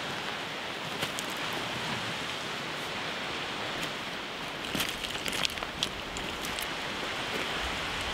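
Steady wash of sea surf breaking on a rocky shore below. A short run of sharp clicks and knocks comes about five seconds in.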